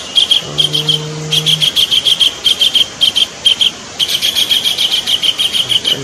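Collared kingfisher calling: fast runs of short, harsh 'kek' notes, about seven a second, broken by brief pauses. A short low hum sounds under them about half a second in.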